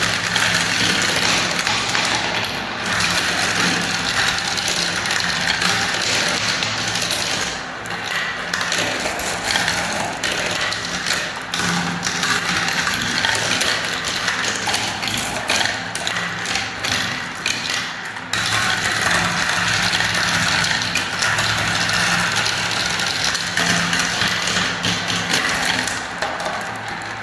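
Many marbles rolling and clattering down a marble-run track, a continuous dense rattle of small clicks that eases briefly about two-thirds of the way through, then picks up again.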